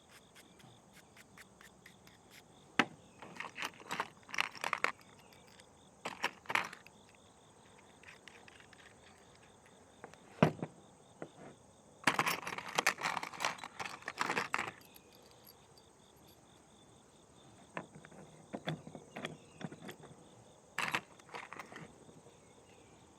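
Hand wire brush scrubbing the threads of a 5/16-inch stainless steel bolt in several short scratchy bouts, with a few sharp metal clicks between them, clearing out bits of plastic that could bind the lock nut.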